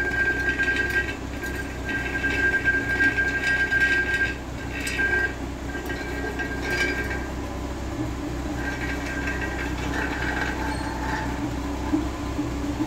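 Car engine idling at the tailpipe for an exhaust gas analysis, a steady low hum. A high steady whine keeps breaking off and coming back through the first half and again near the end.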